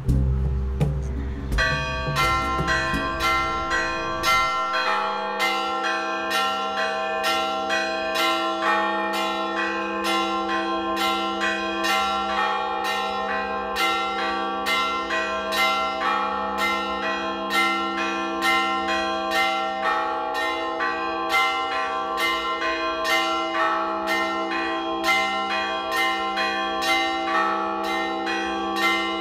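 Church bells ringing a steady peal, starting about a second and a half in: roughly two strikes a second, with many pitches of different bells ringing on together.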